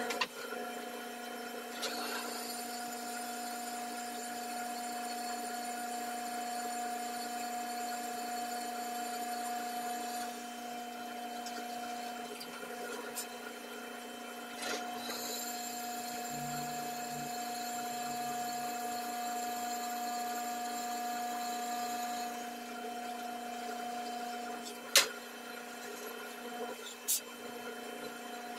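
Drill press running with a steady motor hum as a twist bit drills through a steel plate. The higher cutting sound comes in twice as the bit is fed into the metal, then falls back to the motor alone. A sharp click near the end is the loudest sound.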